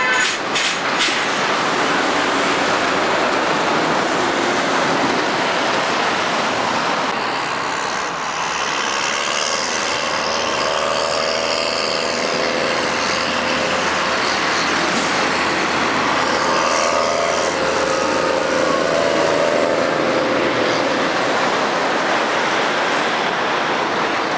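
Road traffic dominated by heavy lorries passing round a roundabout: diesel truck engines and tyre noise in a steady, continuous din, with a few short clicks in the first second.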